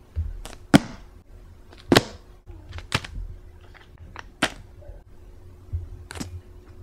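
A run of sharp clicks and taps, about seven at uneven intervals, over a faint steady hum that comes in partway through.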